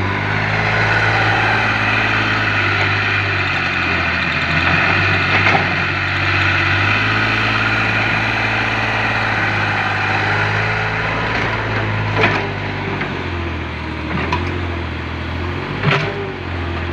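An engine running steadily, its note dropping a little about two-thirds of the way through, with a few sharp knocks over it.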